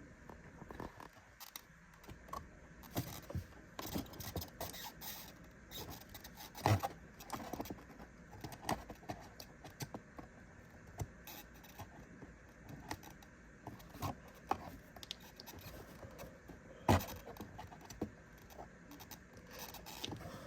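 Toy packaging being handled and worked open to free a plastic figure: irregular light clicks, taps and scrapes, with sharper knocks about 7 seconds in and again about 17 seconds in.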